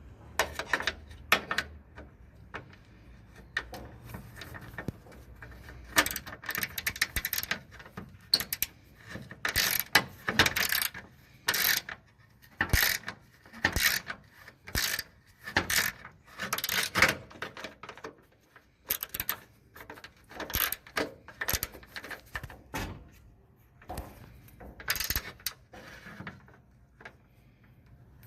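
Ratchet wrench clicking in short repeated strokes while bolts are loosened in a disassembly, with pauses between groups of strokes.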